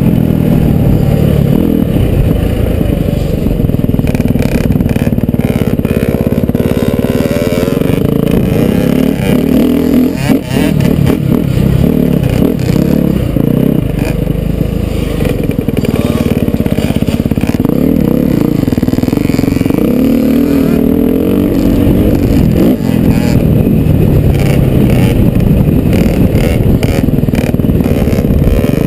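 Off-road motocross bike engine running hard on a dirt track, heard from the rider's helmet. The revs rise and fall through the corners, with a brief throttle-off about ten seconds in.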